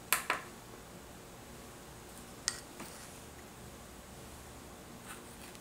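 Light taps and clinks of a small glass bowl and wooden spoon being handled on a wooden table: two quick taps at the start, the loudest sounds here, another sharp clink about halfway with a softer one just after it, and a faint tap near the end, over a faint steady hiss.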